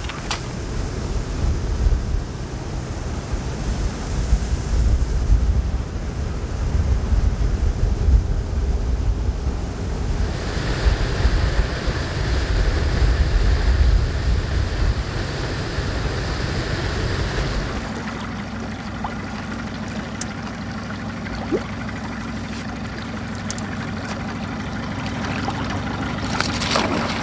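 Motorboat running under way, with wind buffeting the microphone and water rushing past. About eighteen seconds in, the engine drops back to a steady idle hum.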